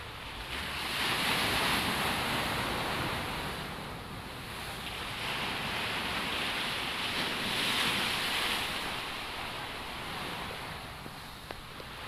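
Sea waves washing, a steady rushing noise that swells and fades in slow surges.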